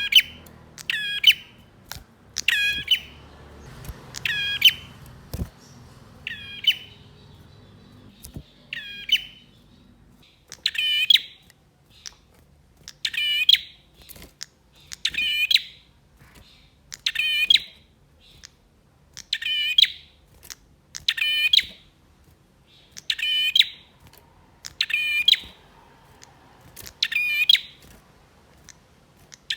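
A male prinia (prenjak) calling over and over: a short, sharp chirping phrase repeated about every two seconds. This is the male's loud song.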